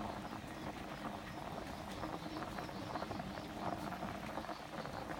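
Curry broth with hed phao mushrooms boiling hard in a metal pot: a steady bubbling with many small pops as bubbles burst.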